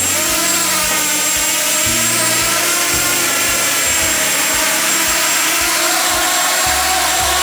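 Quadcopter drone's electric motors and propellers running close by: a loud, steady buzzing whine with several pitched tones. It starts abruptly and cuts off after about seven seconds.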